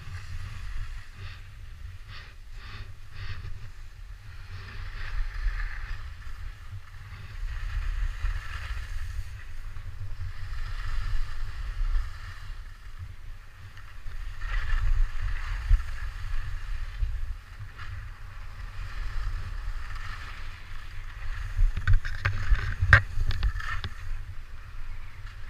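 Skis hissing and scraping over packed snow, swelling every few seconds with each turn, over a constant low rumble of wind buffeting the microphone. A few sharp knocks come near the end.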